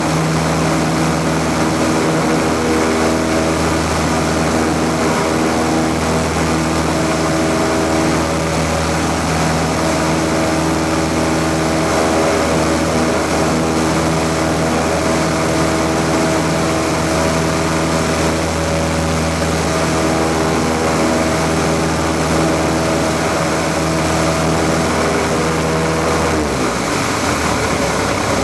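Light aircraft's piston engine and propeller drone steadily in flight, over a wide rush of airflow noise. About 26 seconds in the engine note falls away as the throttle is closed for a simulated engine failure after takeoff, leaving mostly the wind rush.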